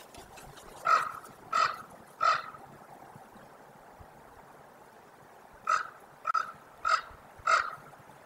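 Common ravens calling with harsh croaks: three in quick succession about a second in, then after a pause a run of four more.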